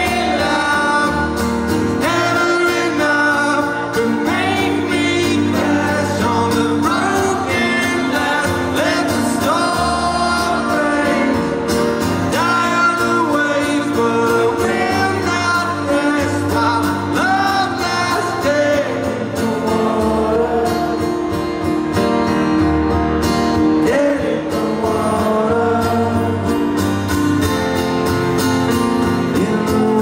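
Live male vocal sung over strummed acoustic guitar, amplified through a concert PA.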